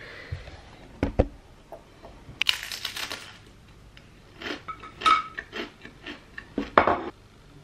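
Biting into and chewing a crispbread: a crackly crunch about two and a half seconds in and a run of shorter crunches and clicks later, with a sharp knock about a second in and light clinks of dishes.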